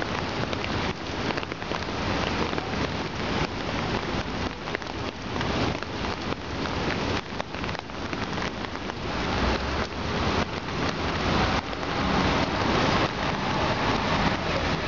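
Steady rain falling on the water of an outdoor swimming pool and its wet deck: a dense hiss of countless small splashes. A low rumble joins in about two-thirds of the way through.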